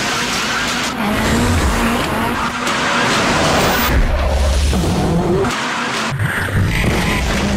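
Car engine revving over tyre noise.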